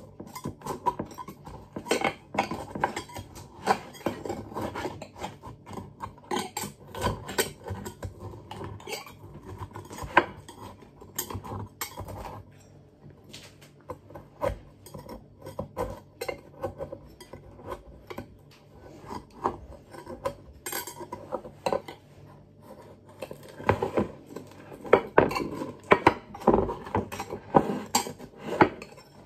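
Metal knife scraping and clinking around the edge of a pan, loosening a baked toad in the hole, in irregular strokes that grow busier near the end.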